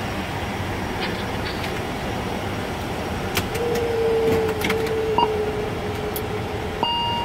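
Steady cockpit noise of an ATR 72-600 taxiing with its turboprop engines running, with a faint whine that sinks slightly in pitch midway. Sharp switch clicks come as the pilot works the overhead panel, and a steady electronic tone sounds near the end.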